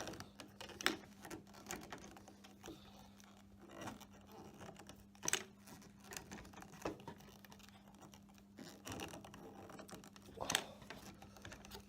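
Hand pop-rivet gun being squeezed over and over to set a long rivet through a plastic clip into softwood, each squeeze giving a sharp click, a few seconds apart.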